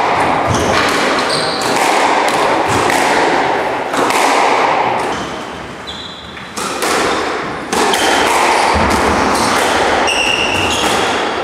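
Squash rally: the ball cracks off racquets and thuds against the court walls again and again, with short high squeaks of shoes on the wooden court floor, all echoing in the hall.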